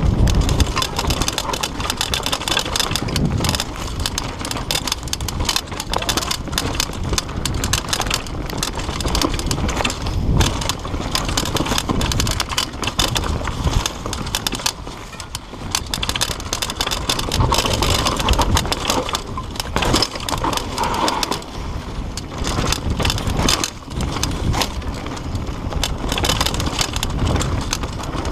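Mountain bike riding fast down a dirt forest trail: tyres rumbling over the ground, with a steady clatter of rattles and knocks from the bike over bumps and wind buffeting the microphone.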